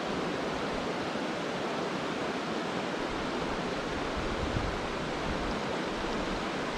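Steady rush of a small mountain creek's running water.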